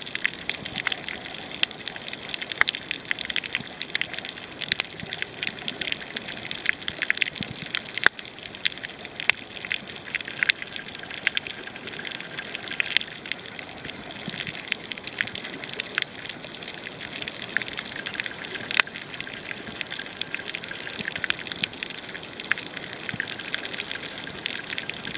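Underwater sound on a coral reef: a steady crackle of many small sharp clicks and pops over a water hiss.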